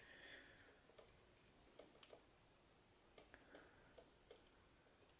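Near silence, with faint scattered ticks and clicks from wires being handled and fitted into a small plug-in screw terminal connector.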